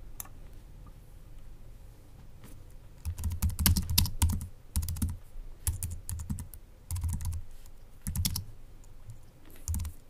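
Typing on a Mac computer keyboard. A few single clicks in the first three seconds, then quick bursts of keystrokes with short pauses between them, each burst carrying a dull thud under the key clicks.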